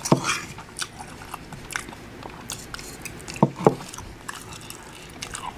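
Close-miked open-mouth chewing of fried rice, with wet lip smacks and mouth clicks, two louder smacks about three and a half seconds in, and a metal spoon now and then scraping the ceramic bowl.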